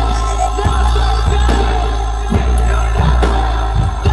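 Loud live band music: a heavy, sustained bass with drum hits about once a second and melodic lines above it.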